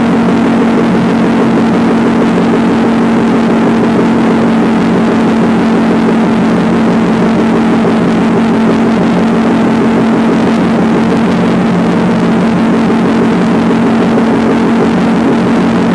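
Motorcycle engine running steadily at a constant pitch while riding, with an even rushing noise from the ride.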